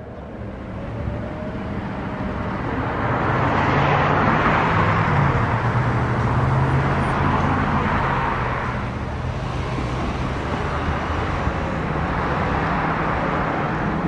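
Road traffic: a vehicle passing, its noise swelling over a few seconds and then easing, over a low steady engine hum.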